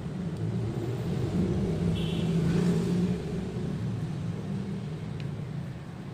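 Low rumble of a passing motor vehicle, growing louder about two seconds in and fading after about three.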